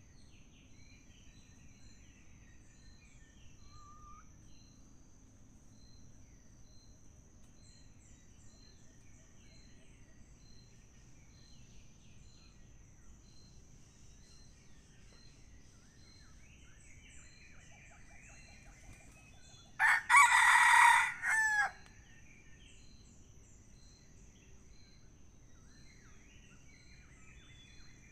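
Red junglefowl rooster crowing once, a short loud crow of about two seconds roughly two-thirds of the way in. Underneath run a steady high insect buzz with a regular pulsing chirp and scattered faint small-bird calls.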